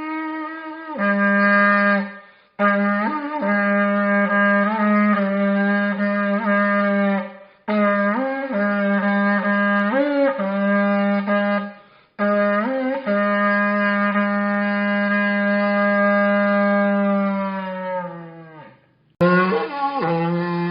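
An archaeological wind instrument of the trumpet and sounding-pipe kind being blown. It plays long held low notes rich in overtones, with short upward jumps in pitch, in several blown phrases separated by brief breaks. A long note near the end sinks in pitch as it fades.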